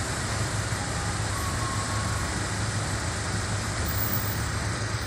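Steady noise of a motor vehicle engine running, a low even hum under a constant hiss.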